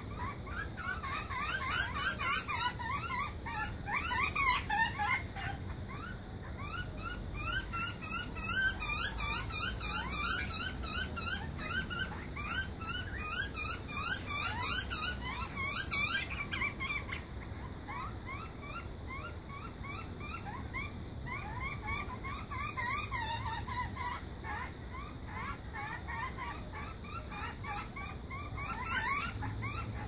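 Young butcherbirds begging for food: a rapid, continual run of short, rising squeaky calls, several a second, with harsher bursts now and then. The calling is busiest in the first half and eases off after about sixteen seconds, with one more harsh burst near the end.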